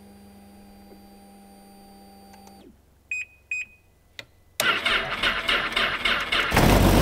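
Ski-Doo snowmobile cold-starting in extreme cold: two short electronic beeps, then the electric starter cranks the engine in an even, pulsing rhythm for about two seconds before it catches and runs loudly near the end.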